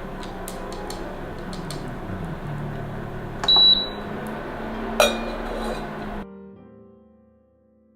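Oven running with a steady hum, then a single high beep about three and a half seconds in, the signal that the roasting time is up, and a sharp click about a second and a half later. The hum stops suddenly about six seconds in, leaving soft piano music.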